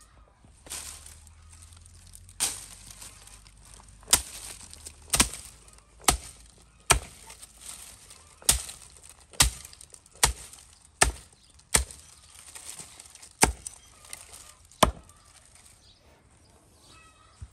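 Dry branches being snapped by hand, about a dozen sharp cracks roughly a second apart, with the dry twigs rustling in between.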